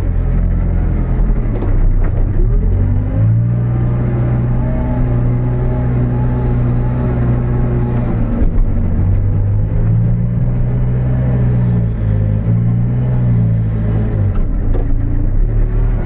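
New Holland B95B backhoe loader's diesel engine running under load, revving up about three seconds in, then dropping back and rising again several times as the machine works.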